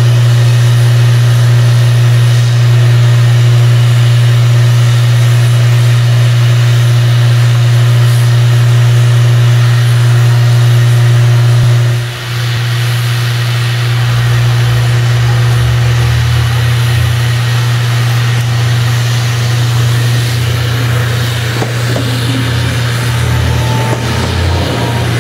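A loud, steady low engine drone, then a diesel railcar's engine running as the railcar pulls into the station alongside a standing steam locomotive; the sound shifts about halfway through and turns more uneven as the railcar comes close.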